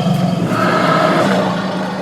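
Bengal tiger giving one long, low call that fades near the end.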